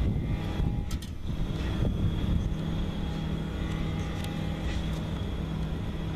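Wind buffeting the microphone over a steady low hum, with a few faint light clicks.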